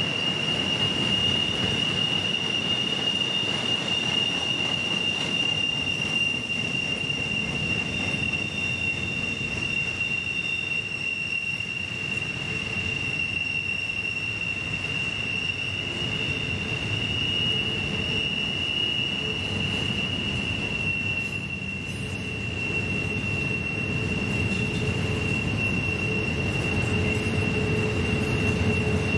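Norfolk Southern freight train's intermodal well cars rolling through a sharp curve, the wheels squealing in a steady high-pitched tone over the continuous low rumble of the wheels on the rails.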